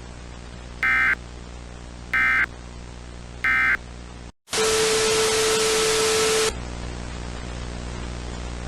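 Three short bursts of EAS digital data tones, about 1.3 s apart, over a steady hum and hiss: the end-of-message code closing an alert. After a brief dropout comes about two seconds of loud static with a steady tone through it, which cuts off suddenly back to the quieter hum and hiss.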